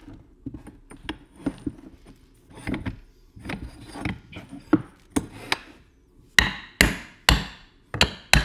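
A metal axle rod knocking and scraping as it is worked through a hole in a boat hull, then a mallet hammering on the axle end, strong even blows about two a second in the last couple of seconds.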